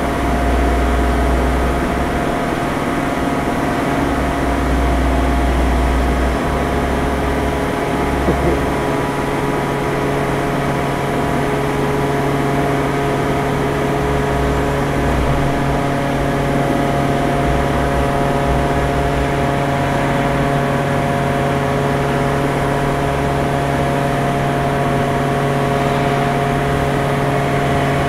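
Steady industrial machinery drone holding several fixed tones, under the deep rumble of a large diesel forklift's engine, which swells and eases off several times as it works.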